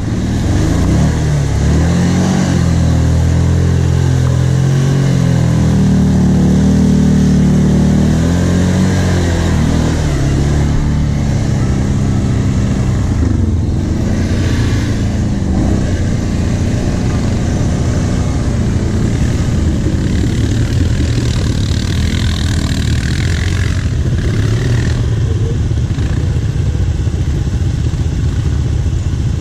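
Kawasaki KVF 750 Brute Force ATV's V-twin engine running under load as it churns through a flooded mud ditch, the revs climbing and dropping over the first ten seconds along with water and mud splashing. After that the engine note is steadier and rougher.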